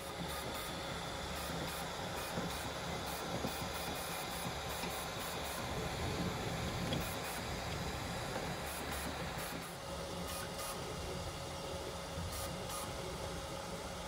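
FLSun Super Racer delta 3D printer running a print: its fans give a steady hiss, with the whir of its motors as the arms move the print head. The sound shifts slightly about ten seconds in.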